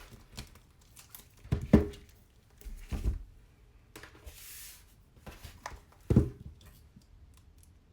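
An album package being handled and opened by hand: a few dull knocks and bumps, and a short hissing rustle about four and a half seconds in.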